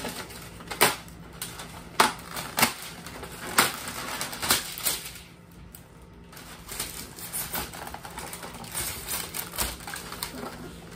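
Irregular clicks, knocks and rustling as an electric airsoft AK-47 and its parts are handled and tugged at in a moulded packaging tray, with a quieter pause about halfway through.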